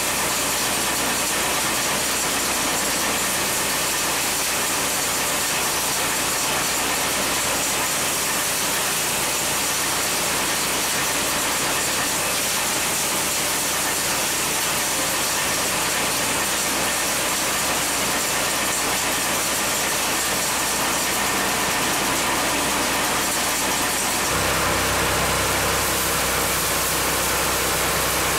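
Small petrol engine running steadily, driving a homemade rice-threshing drum, with a loud rushing hiss as rice stalks are beaten and straw is thrown out. About 24 seconds in the sound changes suddenly to a fuller, lower engine drone.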